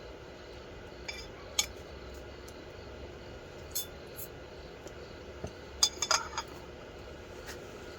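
Scattered light clinks of tableware or utensils, several in a quick cluster about six seconds in, over a steady low background hum.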